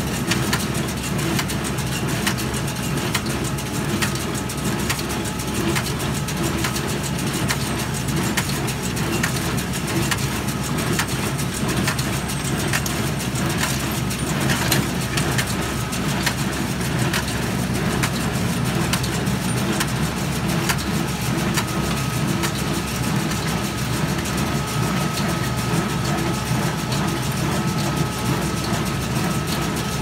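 Kubota M8540 tractor's diesel engine running steadily while pulling a square baler and bale accumulator through the hay, with continuous clattering and knocking from the working machinery.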